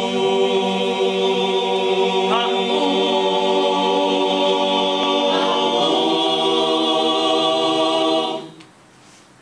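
A choir of men and women singing a cappella, holding long full chords and moving to a new chord twice, then stopping together about a second before the end.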